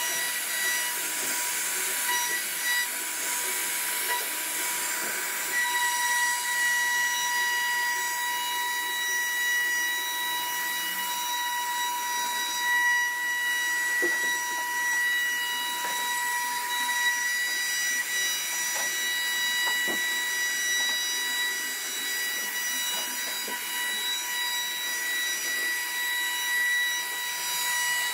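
CNC router spindle carving wood: a steady high-pitched whine over a constant hiss from the cutting bit.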